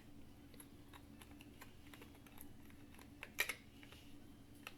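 Faint scattered clicks and taps of toy shape pieces being handled and knocked together, with one louder knock about three and a half seconds in.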